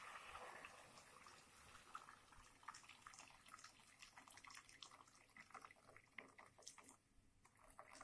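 Water poured from a metal kettle into a frying pan of sautéed vegetables: a faint rush of pouring at first, then a run of small splashes and drips as the stream hits the pan, thinning out near the end.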